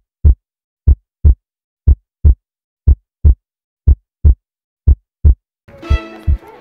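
Heartbeat sound effect: deep double thumps, lub-dub, about one beat a second against silence. Music with violin enters about five and a half seconds in, the heartbeat carrying on beneath it.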